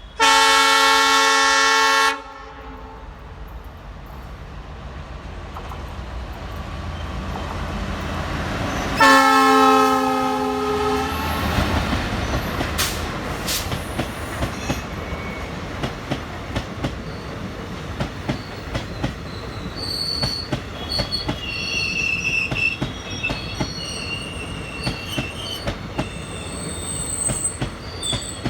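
ALCO WDM3A diesel locomotive sounding its horn in two long blasts, one at the start and one about nine seconds in. The rumble of the train then builds as it passes, with rapid clicking of wheels over rail joints. From about twenty seconds in there is intermittent high-pitched wheel squeal.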